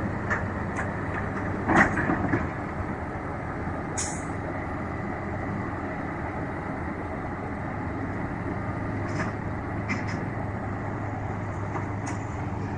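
A large vehicle's engine running steadily, with scattered light clicks and a short hiss about four seconds in.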